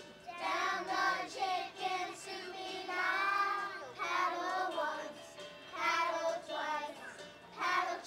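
A group of young children singing a song together, in phrases with short breaks between them.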